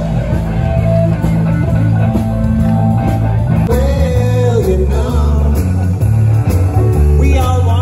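Rock band playing, with electric guitar, a steady bass line, drums and a singing voice.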